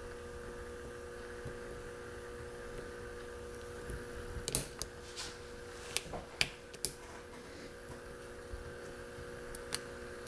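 A few faint clicks of a steel lock pick working the pin stack of a six-pin mortise lock cylinder held under tension, scattered about halfway through with one more near the end, over a steady faint hum.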